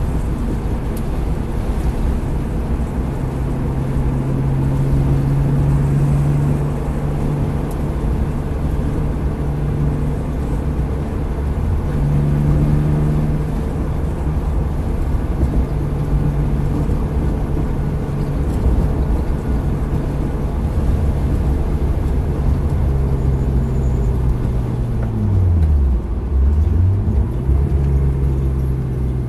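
BMW E36's engine running at steady moderate revs, heard from inside the cabin over road and wind noise. Near the end the revs fall sharply and climb back, a gear change as the car slows.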